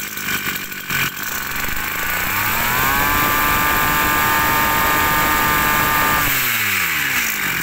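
Hitachi 33 cc two-stroke brush cutter engine idling, then revved up on the throttle about two seconds in, held at high speed for about three seconds, and let back down to idle near the end.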